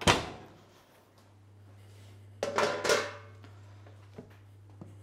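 An oven door shuts with a bang. About two and a half seconds later, a metal baking tray clatters twice as it is set down on the pans on the hob.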